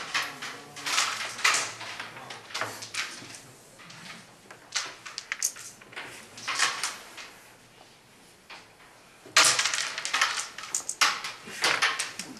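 Carrom striker and carrom men clicking and clattering: sharp wooden knocks of shots and pieces hitting each other and the board's frame, coming in scattered groups, with the busiest run about nine and a half seconds in.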